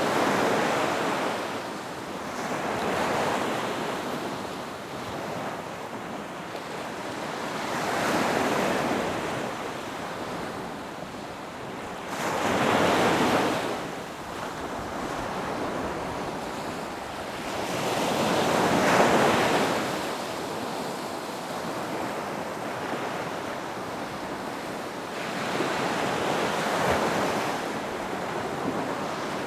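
Ocean waves surging and washing in, a swell of rushing water every four to six seconds, with wind noise underneath.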